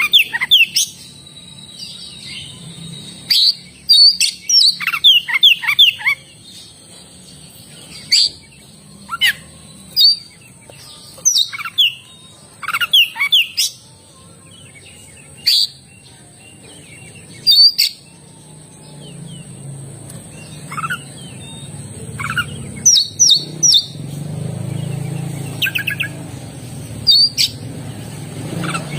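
Oriental magpie-robin (kacer) singing in full voice: loud, sharp whistled notes, many sliding down in pitch, in quick bursts separated by short pauses. A low hum underneath grows louder near the end.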